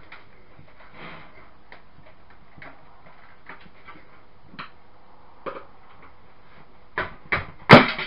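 Sheet-metal computer case being handled, with light scattered taps and clicks, then three loud metallic clanks near the end as a drive-bay knockout plate is worked free of the case front.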